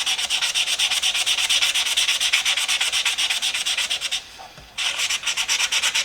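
240-grit sandpaper rubbed quickly back and forth over a wooden screwdriver handle, a rasping stroke about eight times a second, with a short pause a little past the middle.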